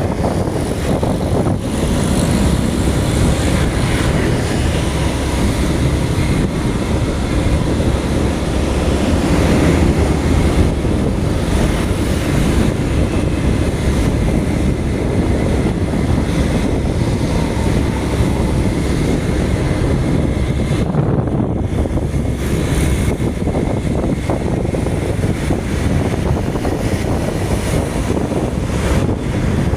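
Steady rumbling noise of travel along a busy main road: vehicle and road noise mixed with wind buffeting on the microphone.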